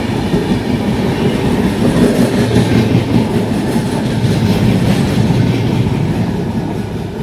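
Indian Railways express coaches passing at speed: a steady rumble of wheels on rail with a clickety-clack over the rail joints, easing a little near the end as the rear of the train goes by.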